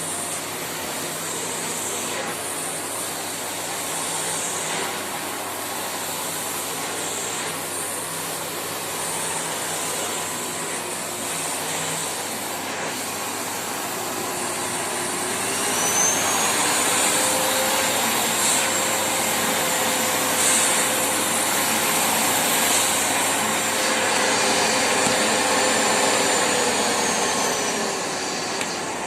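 Samsung Anti-Tangle VC18M21C0VR bagless vacuum cleaner running: a steady rush of air with a motor whine. About halfway through, the whine rises in pitch and the sound gets louder; it holds there, then falls back near the end.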